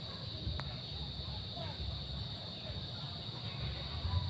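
Garden ambience: a steady high insect drone over a low fluttering rumble, with a single click about half a second in and a few faint short chirps.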